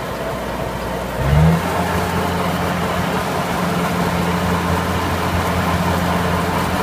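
Kubota DC-70 rice combine harvester running as it threshes, straw and chaff blowing out the back. About a second in, its diesel engine revs up, then holds a steady higher drone.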